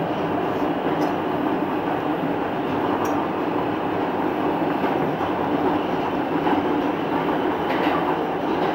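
R160A subway train running between stations, a steady rumble of wheels on rail heard from inside the car, with a couple of faint ticks.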